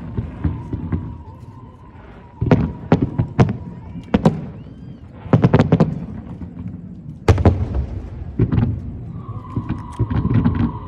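Aerial firework shells bursting: a string of sharp booms at irregular intervals, several coming in quick clusters.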